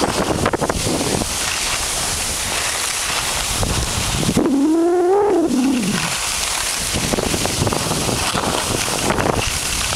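Wind rushing over the microphone and skis scraping on packed snow while skiing downhill. About four seconds in, a drawn-out voice rises and then falls in pitch for about a second and a half.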